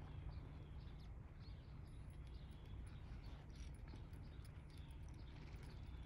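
Faint outdoor ambience: scattered faint bird chirps over a steady low rumble.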